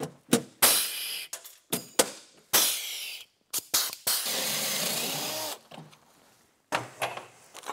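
Pneumatic rivet gun setting blind rivets: short bursts of air hiss with sharp clicks, and one longer steady hiss of air between about four and five and a half seconds in.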